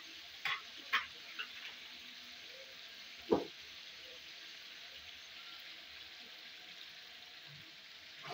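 Tomato masala with eggs cracked into it frying in a kadai, a steady low sizzle. A few light clicks in the first second and a single knock a little over three seconds in.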